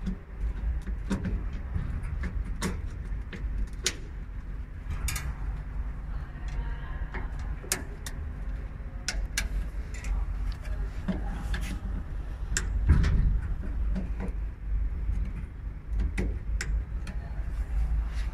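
Scattered sharp clicks and knocks of hand work with a screwdriver inside a metal electrical control cabinet, over a steady low rumble that swells briefly about two-thirds of the way through.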